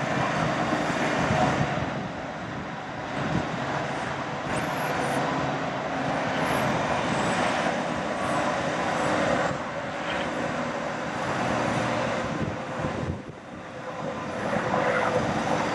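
Steady motor-vehicle noise: an engine running amid road traffic, swelling and easing in level, with a brief dip near the end.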